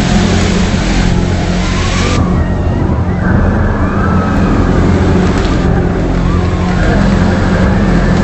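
A loud, steady low drone made of several evenly spaced humming tones, under a rushing wash of noise: the so-called strange sound in the sky.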